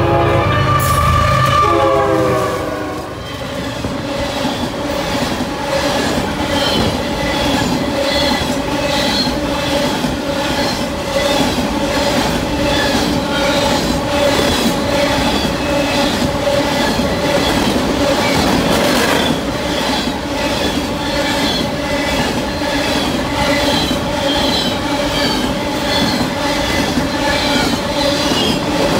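A freight locomotive's horn sounds for about the first two and a half seconds as it reaches the platform and then cuts off. A long string of coal hopper cars then rolls past close by, wheels clicking rhythmically over the rail joints, with a steady squealing ring from the wheels.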